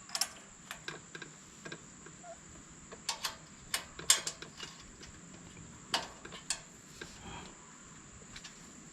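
Irregular clicks and taps of small metal valve-train parts, such as rocker arms, being handled and fitted on the DuroMax XP13000HX generator engine. The taps are busiest a few seconds in and again around six seconds, and thin out near the end.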